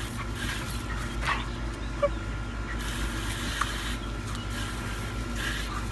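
A dog whimpering, with a few short sounds, over a steady low rumble.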